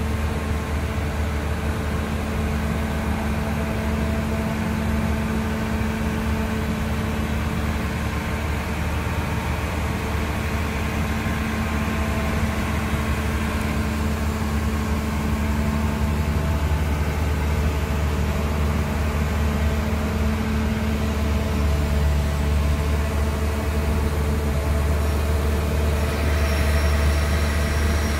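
Hyundai Robex 320LC-9 excavator's Cummins QSC diesel engine running steadily with a low, even drone, a little louder in the second half.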